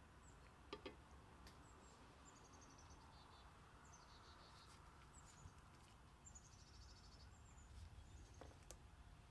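Near silence: faint, high bird chirps in short falling runs over a low hum, with a couple of soft clicks about a second in.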